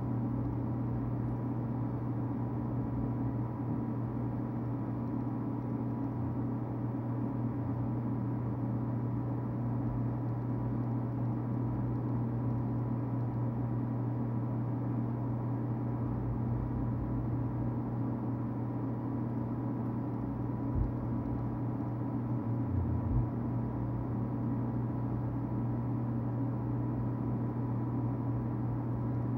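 Steady low mechanical hum with a faint high tone, unchanging throughout, with a couple of soft knocks about two-thirds of the way through.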